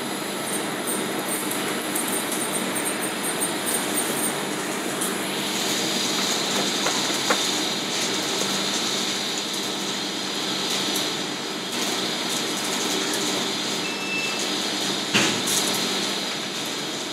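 Steady hum and hiss of commercial kitchen ventilation, with a couple of sharp knocks, the loudest near the end.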